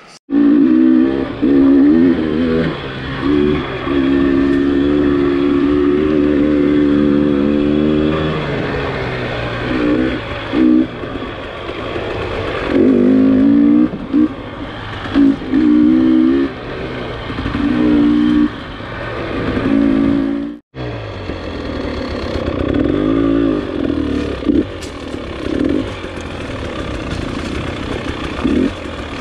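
Dirt bike engine running under load, revving up and down in repeated bursts as the throttle is opened and closed. The sound drops out for an instant about two-thirds of the way through, then the engine carries on.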